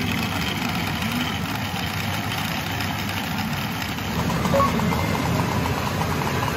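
Pachinko parlor din: a loud, dense, steady wash of many machines running. From about four seconds in, a fast, even run of light ticks sounds over it.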